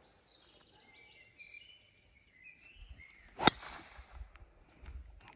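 Birds chirping, then about three and a half seconds in a single sharp crack of a driver striking a golf ball off the tee, with a short hiss after it.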